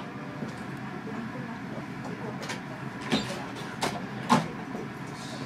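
Steady hum inside a Nagano Electric Railway 1000 Series carriage, with four sharp clicks and clunks in the second half, the last the loudest, as a crew member works the overhead hatch that leads up to the elevated driver's cab.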